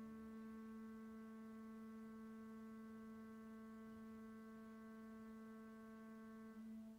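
Pipe organ holding a soft, steady closing chord, released near the end as the piece finishes.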